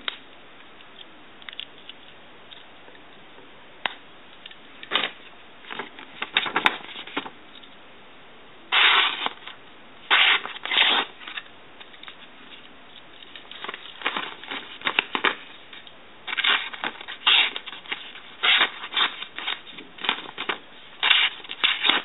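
Victorinox Tinker pocketknife blades cutting into a sheet of paper: a series of short, irregular cuts, only a few at first and many more from about nine seconds in.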